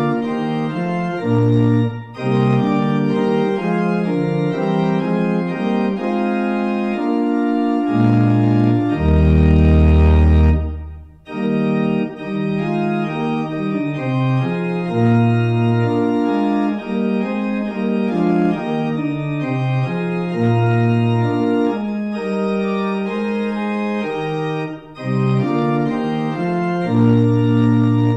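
Organ playing slow, held chords that change every second or two, with a deep pedal bass note entering about nine seconds in and a brief break just after.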